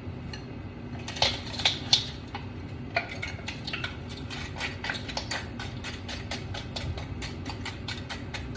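Metal cookware and utensils clattering sharply three times, then a quick run of small clicks and knocks several times a second: kitchen work at a wok.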